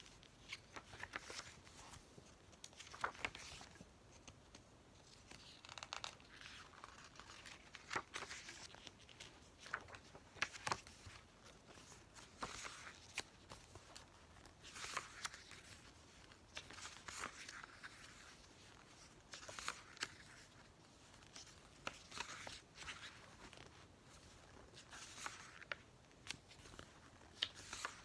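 Pages of a glossy photo book being turned by hand, one after another. Each turn is a soft papery swish, about every two to three seconds, with a few light taps in between.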